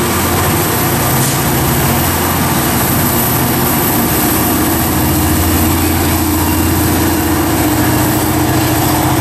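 EMD GP49 diesel locomotive engine running steadily as it passes close by, a deep even hum with a steady tone over it.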